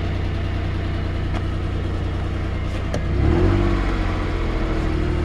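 A 1987 Acura Legend's 2.5-litre V6 running at idle, heard from inside the cabin. About three seconds in, the engine speed rises and then holds steady at the higher revs.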